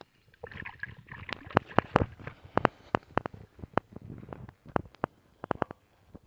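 Irregular sharp clicks and knocks of handling noise from a handheld phone being carried and moved, with a short rustle in the first couple of seconds.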